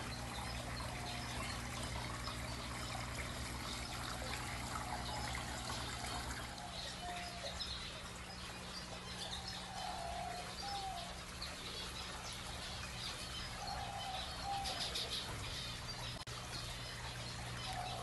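Water trickling from a small rock fountain, with birds chirping and a short warbling call repeated every few seconds.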